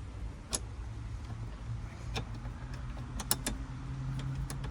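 A few sharp clicks and taps of small screws and a metal bracket being handled and set in place, over a steady low hum.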